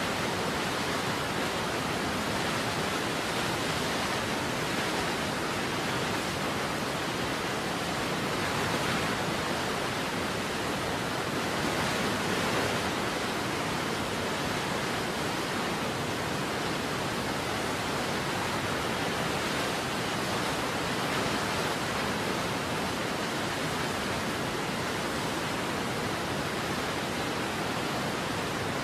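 Waterfall rushing steadily: an even wash of falling-water noise with no breaks or changes.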